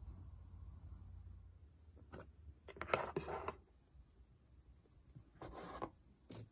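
Plastic lid being pried off a round plastic food tub: a click, then crackling plastic about three seconds in, with more crackling handling and a sharp click near the end.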